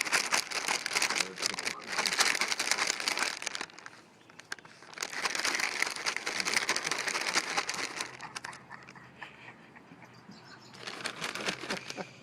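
Crinkling, crackling noise in three stretches of a few seconds each, with quieter gaps between.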